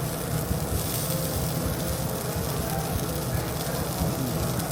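Steady low rumble with an even hiss above it: restaurant background noise around a tabletop grill.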